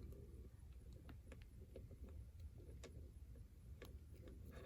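Near silence with a few faint, scattered small clicks of a metal jump ring and jewelry findings being worked back together by hand.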